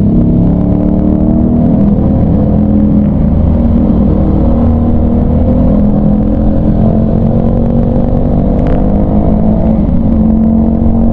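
Motorcycle engine running under steady throttle while riding, its pitch rising gently partway through as the bike speeds up, with a constant low rush of wind noise.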